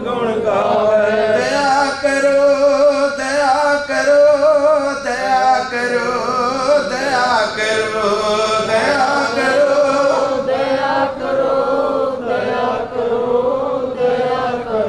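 A man singing a line of Sikh devotional hymn (gurbani kirtan) in a slow melody of long, held notes that bend gently in pitch.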